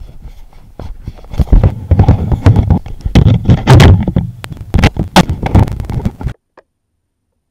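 Close, loud handling noise: an irregular run of knocks, thumps and rustling right at the microphone. It builds over the first two seconds and cuts off suddenly about six seconds in.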